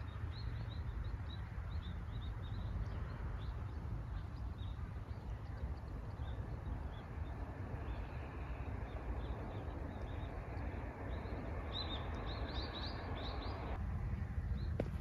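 Small birds chirping in short repeated notes, in a denser run near the end, over a steady outdoor background hiss.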